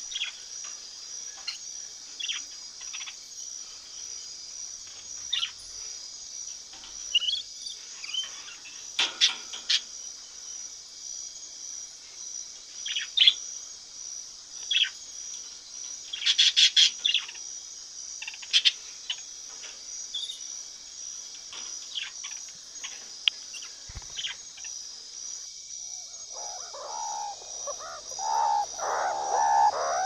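Rainbow lorikeet giving short, sharp screeches, singly and in quick clusters, over a steady high buzz in the background. Near the end a lower, rougher chattering of animal calls takes over and grows louder.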